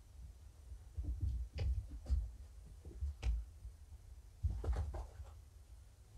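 Soft rustling, scuffs and low thumps as kittens scramble in and out of a fabric cat bed on a blanket and are handled, with a busier patch of scuffling about two thirds through.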